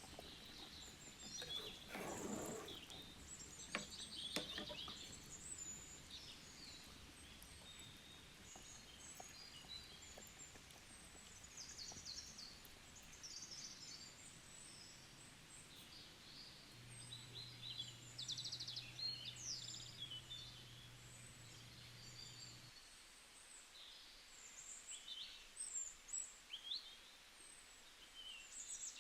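Faint birdsong: many short, high chirps scattered throughout. There are a few soft knocks in the first few seconds, and a low steady hum for several seconds past the middle.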